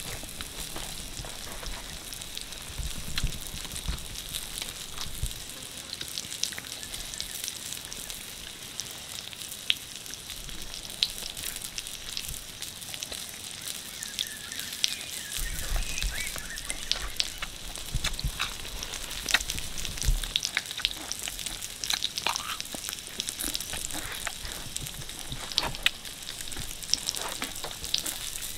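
Scattered crisp clicks and crackles over a steady hiss, from a large knife chopping food on a bed of leaves and from close-up eating.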